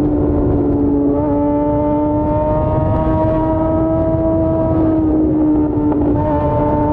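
Yamaha FZ6's 600 cc inline-four engine running under way, a steady engine note that creeps slightly upward, with shifts in pitch about a second in and again near six seconds, over low wind rumble.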